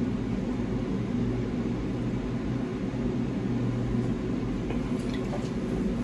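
A person gulping down the last of a bottle of Sprite, over a steady low hum.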